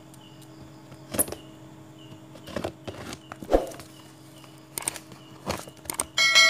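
Packing tape on a cardboard parcel being cut and ripped with a small blade: about half a dozen short separate scrapes and tears over a steady low hum. Near the end a bright bell-like chime begins to ring out.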